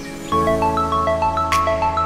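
Background music: a melody of short, bright, evenly paced notes over a steady bass note, getting louder about a third of a second in.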